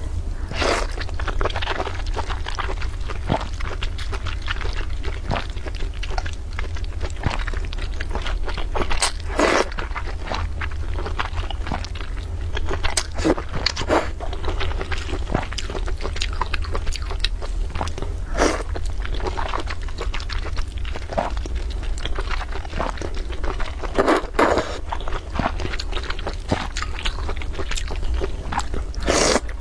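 Close-up eating sounds of wide flat mianpi noodles in sesame sauce: wet chewing with a loud slurp every few seconds as mouthfuls are sucked in. A steady low hum runs underneath.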